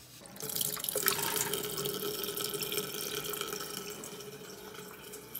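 Kitchen faucet running cold water in a steady stream into a stainless steel sink, with a light click about a second in.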